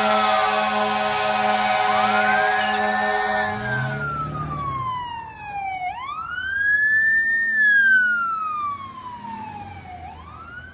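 Fire truck siren wailing, rising quickly and falling slowly over and over. For the first four seconds a steady multi-tone horn blast sounds over it; then the siren sounds alone and fades as the truck moves away.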